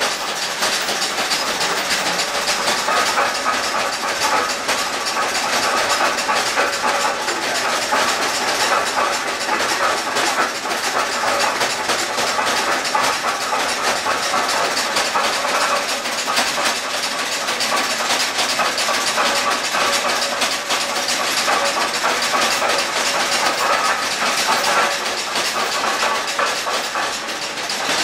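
Old cable haulage system of a mine running as a cart is lowered down the inclined shaft: a steady rushing rattle of the cable and the wheels on the rails, with a faint whine over it.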